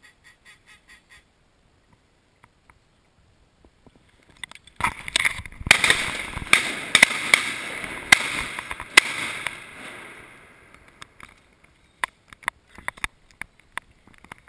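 Duck quacking: a short run of about six even quacks at the start, then from about five seconds in a loud, dense stretch of overlapping quacking with several sharp cracks standing out, fading out by about ten seconds.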